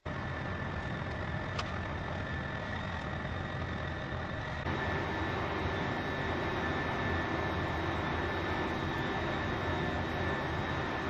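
Steady machine drone with a rushing noise and two faint high whining tones. A faint click comes about one and a half seconds in, and the drone steps up slightly about five seconds in.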